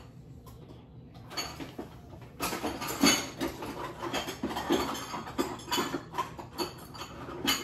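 Rustling and quick irregular clicking of food packaging and small items being handled on a counter. It starts about a second and a half in and gets busier about a second later.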